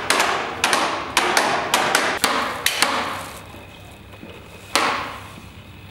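Sharp knocks in quick succession, about three a second, each with a short ringing tail. They stop about three seconds in, and one more knock comes near the end.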